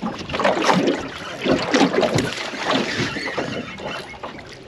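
Water splashing irregularly as a hooked small saratoga thrashes while it is fought on a spinning rod beside the boat.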